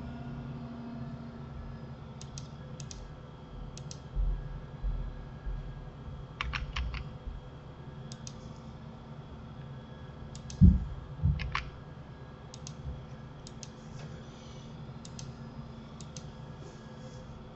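Computer keyboard and mouse clicks, tapped on and off in short pairs and runs, with a few dull thumps, the loudest about two-thirds of the way in.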